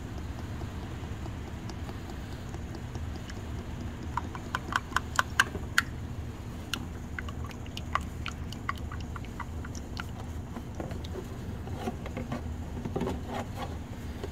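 Automatic transmission fluid being poured from a plastic quart bottle into a funnel: a quick run of sharp ticks about four seconds in, then scattered single ticks, over a steady low hum.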